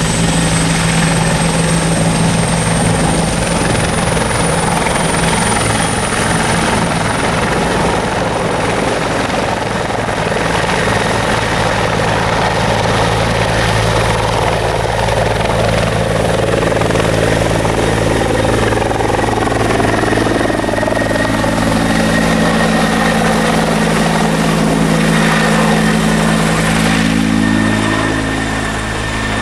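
Bell 412EP helicopter's twin turboshaft engines and four-blade rotor running loudly and steadily, with a high turbine whine, first on the ground and then in flight overhead; in the second half the tones sweep down and back up as it passes.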